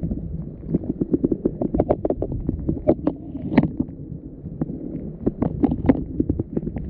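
Muffled underwater sound heard through an action camera's waterproof housing: a steady low rumble with many quick, irregular clicks and knocks.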